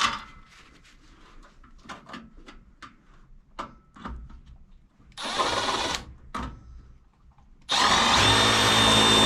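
Power drill driving screws to mount a relay: a short burst about five seconds in, then a longer steady run with a motor whine near the end. Light handling clicks come before it.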